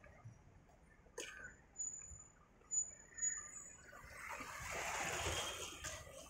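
Street ambience: thin high bird chirps in the first half, then a vehicle passing by, its noise swelling and fading in the second half.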